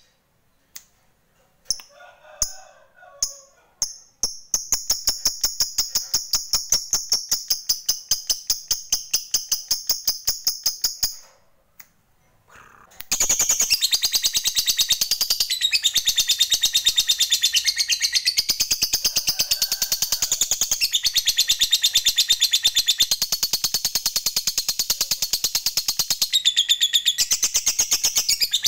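Lovebird singing its long chattering trill (ngekek): a few scattered high chirps, then a fast, even run of chirps for about six seconds. After a brief pause comes a longer, unbroken run of dense, high chatter lasting about fifteen seconds.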